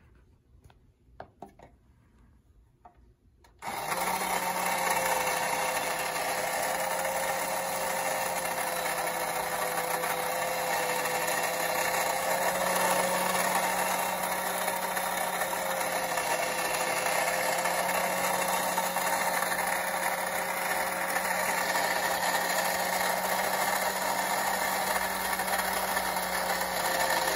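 Cragstan Mr. Fox the Magician, a battery-operated 1960s tin toy, starting up: a few light clicks, then about three and a half seconds in its small electric motor and gears start abruptly and run with a steady hum to the end.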